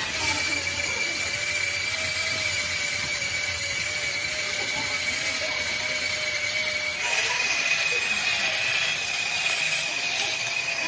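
Workshop machine running steadily with a high-pitched whine over a noisy hiss; about seven seconds in the pitch steps slightly higher and the noise grows.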